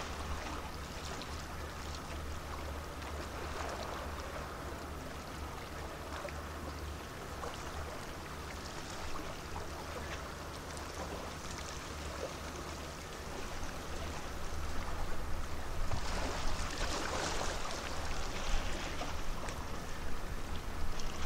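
Water washing and trickling along the quay from a large cruise ship's wake, over the ship's low, steady engine drone. The water noise grows louder and rougher about two-thirds of the way through.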